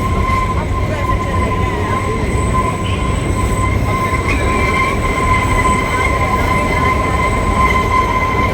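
Kalka–Shimla narrow-gauge toy train running, heard from on board: a steady rumble with a continuous high whine over it.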